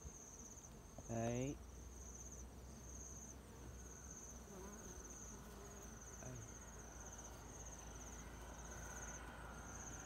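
An insect chirps in short, high, pulsed trills, each about half a second long, repeating in a steady rhythm over a faint outdoor background.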